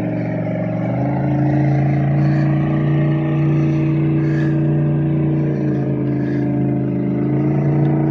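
An engine running with a steady, even hum. Its pitch steps up slightly about a second in and dips briefly around six seconds.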